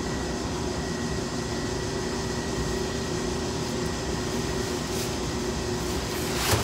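Steady hum of running ventilation machinery, with a constant faint whine over it. A short knock sounds near the end.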